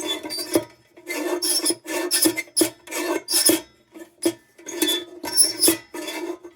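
Repeated back-and-forth rasping strokes of metal rubbing on the Dietz lantern's tinplate, about two a second, with a ringing hum in each stroke.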